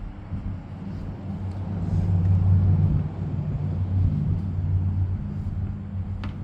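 Low engine-like rumble with a steady hum, swelling about two seconds in and easing off after about four seconds. A short click near the end.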